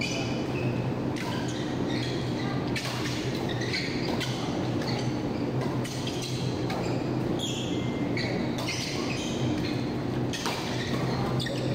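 Badminton being played on an indoor court: sharp clicks of rackets striking the shuttlecock and short squeaks of shoes on the court, over a steady low hum.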